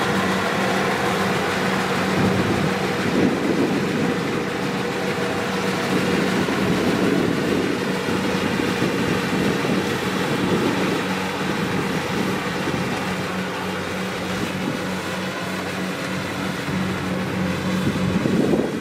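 Kubota DC-70 Plus rice combine harvester running steadily under load: a diesel engine with a constant hum and the clatter of its harvesting machinery.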